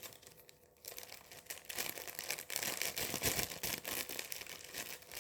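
Plastic packaging crinkling and rustling as it is handled, starting about a second in as a run of irregular crackles.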